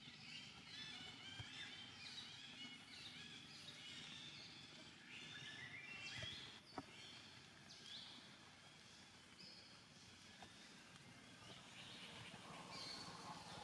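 Faint outdoor ambience filled with many short, high-pitched animal chirps and calls, with a single sharp click about seven seconds in.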